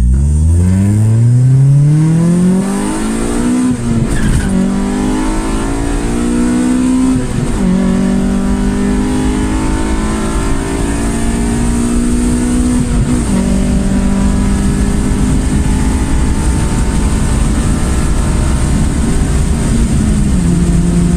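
Car engine and exhaust accelerating hard through the gears: the note climbs, breaks with an upshift three times, then holds at a steady cruise and drops in pitch near the end.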